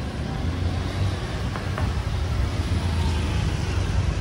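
Motor scooters running along a street, heard as a steady low engine rumble.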